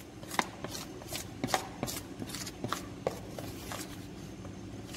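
A metal spoon stirring thick gram-flour batter in a bowl, with irregular light clicks and taps of the spoon against the bowl, about two a second.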